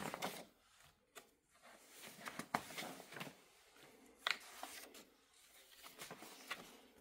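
Paper pages of a printed instruction manual being turned by hand: a string of brief rustles and flicks as page after page is leafed through.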